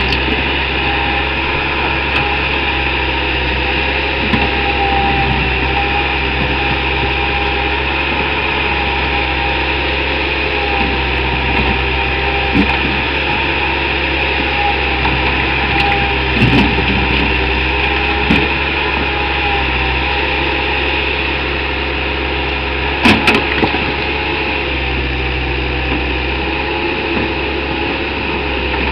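Bobcat 864 compact track loader's diesel engine running steadily under load while it works its bucket into broken concrete. A few sharp knocks come around the middle and a louder pair about three-quarters of the way through as bucket and concrete slabs meet.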